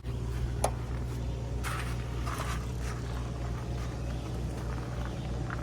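Air hissing and sputtering out of a Suburban RV water heater's open pressure relief valve as the tank refills and pushes the trapped air out, with a couple of short spurts, over a steady low hum.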